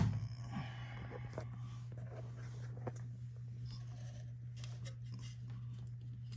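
Faint scraping and light plastic clicks of a refrigerator compressor start relay being worked off the compressor's terminal pins by hand, a few scattered ticks, over a steady low hum.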